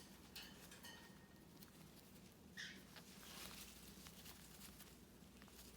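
Near silence with faint sounds from a blue-and-gold macaw: one short, breathy sniffle about two and a half seconds in, and a few light clicks.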